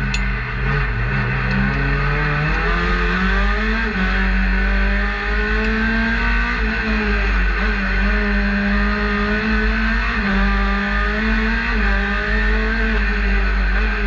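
Methane-fuelled Peugeot 208 rally car's engine, heard from inside the cockpit, pulling hard on a stage. The revs climb and fall back again and again as the driver shifts gears and lifts for corners.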